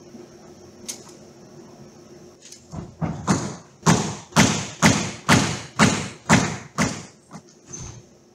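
A dancer's body and hands thudding against the studio floor in a run of about nine heavy thuds, roughly two a second, echoing in the hall. They start about three seconds in and die away near the end.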